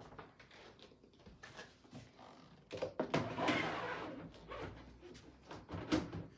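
Chick brooder manure tray being slid into its slot under a cage layer: scattered clicks and knocks, a louder scraping slide about three seconds in, and a sharp knock near the end as the tray seats.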